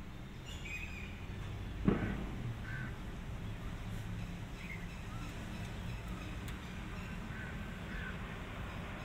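Birds calling briefly now and then over a steady low rumble, with one sharp knock about two seconds in.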